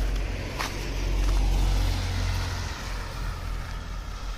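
A car driving past on a slush-covered street, its engine rumble and tyre noise in the slush loudest a second or two in, then fading as it moves away.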